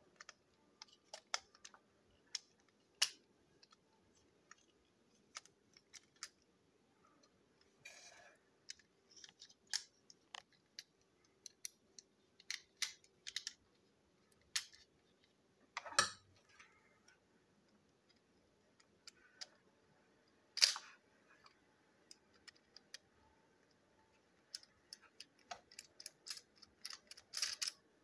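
Irregular light clicks and taps of a plastic toy train wagon and a marker being handled on a table, with two louder knocks partway through and a quick run of clicks near the end.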